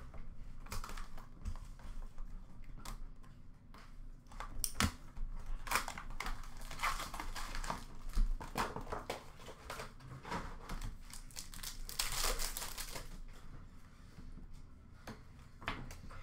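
Hockey card pack wrappers crinkling and tearing as packs are ripped open by hand, with cards shuffled between them, in irregular bursts of rustling.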